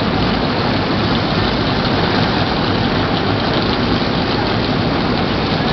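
A field of NASCAR Nationwide Series stock cars' V8 engines running as the cars roll past in single file: a steady, loud, blended engine noise with no breaks.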